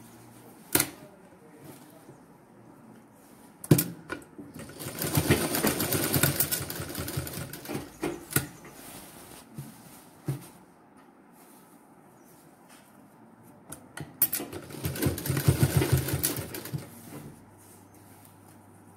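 Sewing machine running in two bursts of fast stitching, sewing a folded hem into white apron fabric, with a couple of sharp clicks before the first burst.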